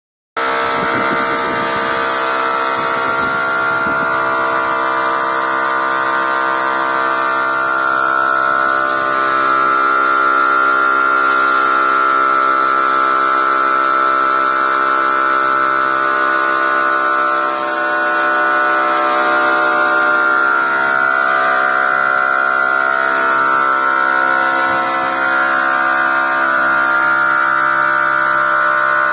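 Spray-polishing machine running with a steady droning hum and hiss that holds one pitch throughout.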